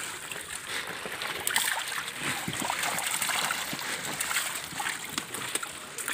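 Densely crowded fish thrashing at the surface of a lifted net in a floating net cage, making a continuous churning splash of water broken by many quick slaps.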